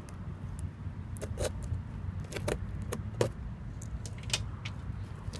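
A cardboard shipping box and its packaging being handled and opened: irregular sharp clicks, taps and short scrapes over a low steady hum.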